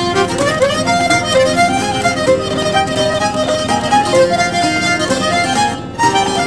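Background music: a lively fiddle tune, with a short break near the end before it picks up again.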